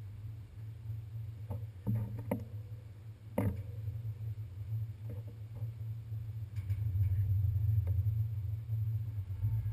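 Steady low rumble of a ferry's diesel engines, growing somewhat louder in the second half, with a few scattered knocks and clanks, the sharpest about three and a half seconds in.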